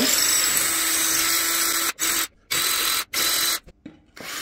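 Ryobi 18V cordless drill spinning up and boring out a dowel hole in a wooden chair to enlarge it. The drill runs for about two seconds, then in three short trigger bursts with brief stops between, and falls quiet near the end before starting again.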